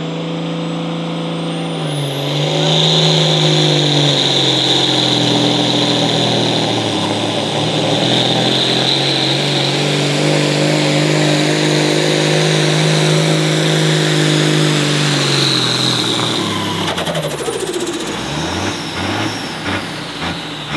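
Diesel pulling tractor's engine running flat out as it drags the weight-transfer sled. The pitch climbs about two seconds in and holds, then falls away steeply about three-quarters through as the run ends, with a few knocks as it winds down.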